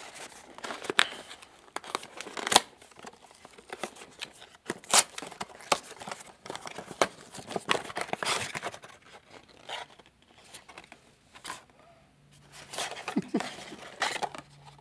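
Paperboard product box being opened by hand: flaps pried loose and pulled, with cardboard and packaging rustling and crinkling. There are many sharp clicks and scrapes, with longer bouts of rustling.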